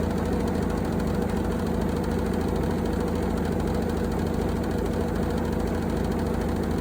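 Engine idling steadily, with a fast, even pulse.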